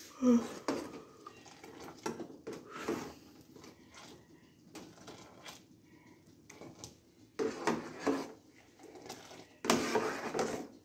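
Kitchen clatter of metal pots and utensils on a gas stove: scattered knocks and clinks, ending with a spoon stirring in an aluminium saucepan of milk.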